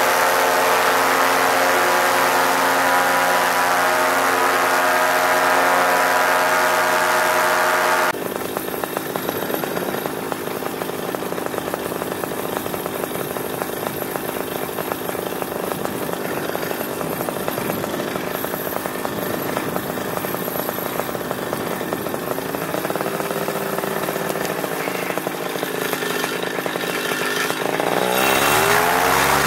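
Paramotor engine and propeller running steadily at high power. About eight seconds in the sound drops suddenly to a quieter, rougher run mixed with rushing air. Near the end the engine revs up again with rising and falling pitch.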